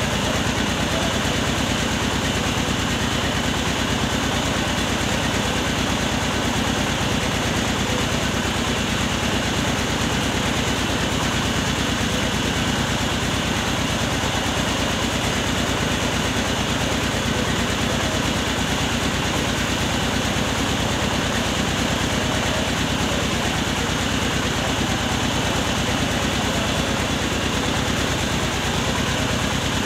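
Truck-mounted mobile rice mill running, its engine and milling machinery making a steady, unbroken drone with a fast low pulse.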